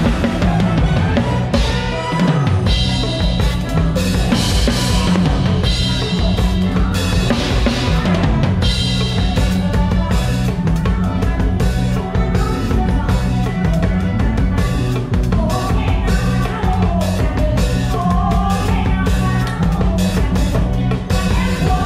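Acoustic drum kit played live in a band medley, up front in the mix, keeping a steady beat on bass drum, snare and cymbals over electric bass guitar and keyboard.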